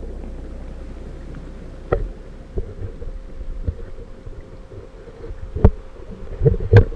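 Muffled underwater sound picked up by a waterproofed action camera while snorkeling: a low rumble that fades about two seconds in, a faint steady hum, and a scattering of sharp knocks and thumps, the loudest two close together near the end.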